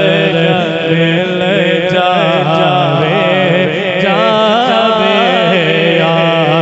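A man singing a Punjabi naat into a microphone, his voice winding through long ornamented phrases over a steady low drone.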